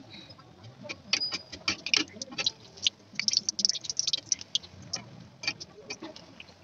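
Malpua batter deep-frying in hot oil in a kadai: the oil crackles and spits in quick, irregular pops, busiest in the middle and thinning out near the end.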